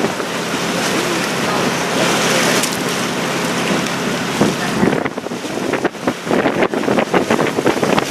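Sightseeing boat under way: a steady low engine hum under the rush of water, with wind buffeting the microphone, gustier in the second half.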